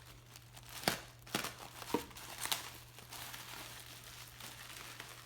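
Packaging crinkling and rustling as items are unpacked and handled, with a few sharp clicks in the first half.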